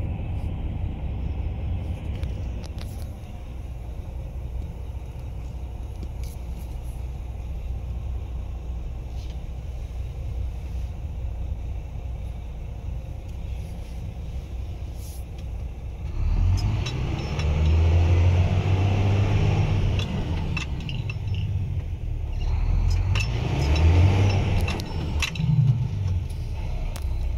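Renault Kerax truck's diesel engine heard from inside the cab, idling low and steady, then revving up suddenly about sixteen seconds in as the truck pulls off in first gear. The revs rise and fall unevenly in two surges with a dip between, which the title puts down to an accelerator fault.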